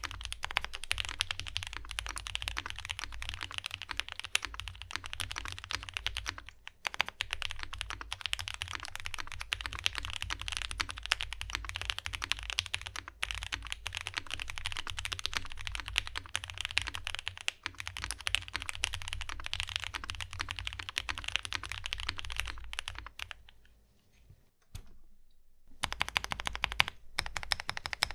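Fast, continuous typing on a Graystudio Space80 mechanical keyboard fitted with lubed C3 Banana Splits linear switches, a polycarbonate plate and GMK keycaps. The typing stops for about two seconds near the end, then resumes.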